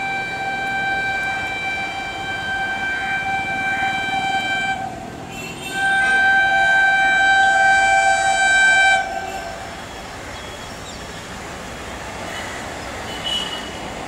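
WAP7 electric locomotive's horn sounding two long blasts, the first about five seconds long and the second, louder one about three seconds, with a second lower tone joining near its end. After the blasts, the approaching LHB train runs on with a steady rumble.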